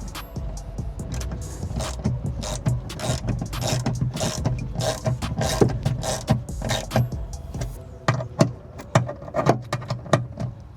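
Irregular clicks, knocks and rattles of a door lock actuator and latch being worked by hand back into a car's rear door cavity, plastic and metal parts tapping against the door shell. The sharpest knocks come in the last few seconds.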